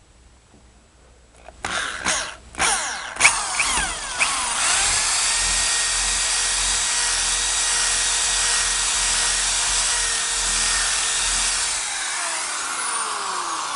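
Electric drill boring through a stick of resinous fatwood pine. After a few short bursts the motor spins up and runs steadily while the bit cuts, then slows near the end.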